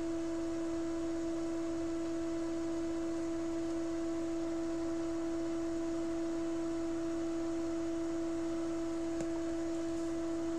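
A steady pure tone holding one pitch without change, with a fainter overtone an octave above it, like an electronic hum or whine.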